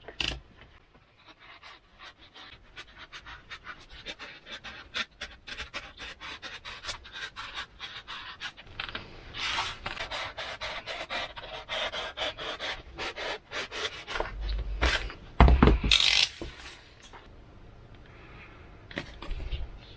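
Snap-off utility knife blade sawing through EPP foam, a quick run of squeaky scratching strokes, several a second. A louder thump comes about three-quarters of the way through.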